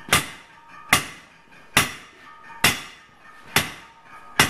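Hand hammer striking red-hot leaf-spring steel on an anvil: six blows at a steady pace a little under a second apart, each with a short metallic ring. The hammering draws out the edges of the spud blade thin so they can be sharpened.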